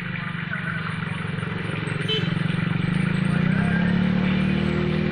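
A small engine running with a low, pulsing hum that grows louder to a peak a little past halfway, then eases slightly, over a faint high buzz.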